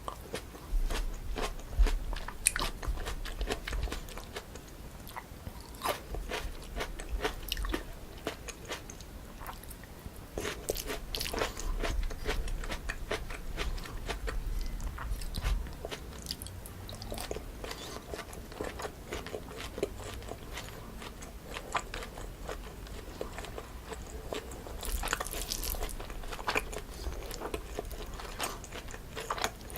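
Close-miked eating sounds: a person biting and chewing a meal of chewy cold jjolmyeon noodles with crisp toppings, with many sharp crunches.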